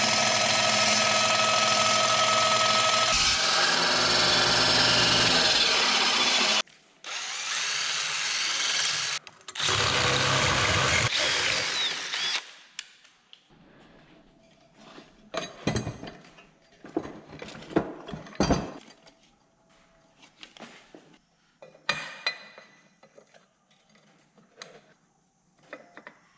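A power tool running loud and steady in three stretches, cut short each time, for about the first twelve seconds, then scattered knocks and clicks of hand work.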